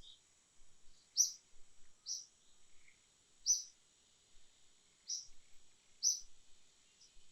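Short high bird chirps, five or six of them about a second apart, over a steady high insect drone.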